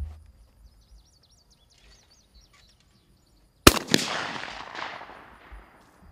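A shotgun shot at a flying clay target about three and a half seconds in: two sharp reports a quarter of a second apart, then a long rolling fade.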